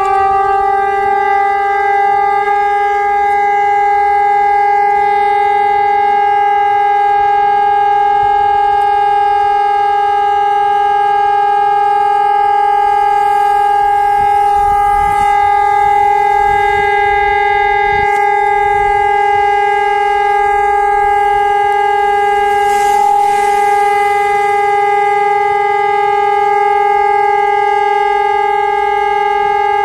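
Fire station alarm siren sounding a loud, steady held tone at constant pitch, calling out volunteer firefighters for an emergency.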